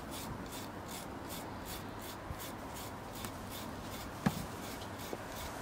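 Microplane rasp grater zesting a lime: a steady run of scraping strokes, about three a second, as the peel is drawn across the blade. One light click about four seconds in.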